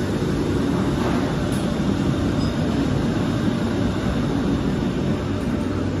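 Steady mechanical roar with a low hum underneath, the running machinery of a commercial restaurant kitchen.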